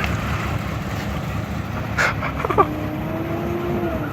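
Jeep Cherokee engine running rough with a heavy knock, which the crew take for rod knock. A sharp clack sounds about halfway through, and a faint steady whine rises in the second half.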